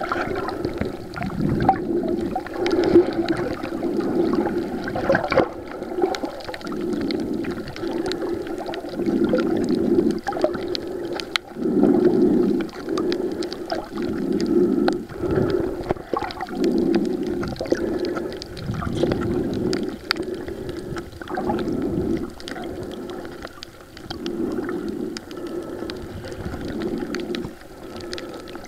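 Muffled underwater sound picked up by a submerged waterproof compact camera while snorkelling: a low rushing of water that swells and fades about every second and a half to two seconds, with faint scattered clicks.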